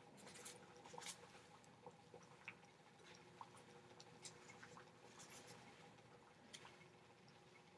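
Water at a full boil in a glass beaker on a hot plate, heard as faint, irregular bubbling and popping, a few pops a second. The water is at its boiling point, turning to steam.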